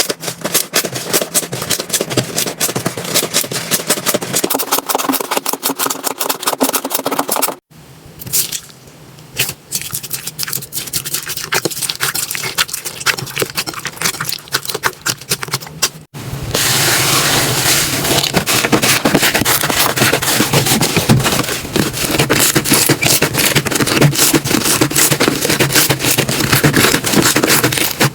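Slime being worked by hand, making dense, rapid crackling and popping clicks. There are three clips cut together: the middle one is quieter, and the last one is the loudest.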